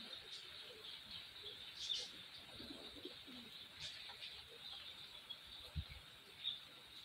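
Dove cooing in low, short phrases two to three seconds in, with small birds chirping now and then over a steady faint hiss. Near the end there is a single short low thump.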